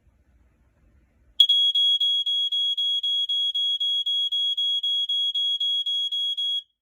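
Sears model 462.57472 ionization smoke alarm from 1985 sounding during its test: one high-pitched tone, pulsing rapidly and evenly. It starts about a second and a half in and cuts off just before the end.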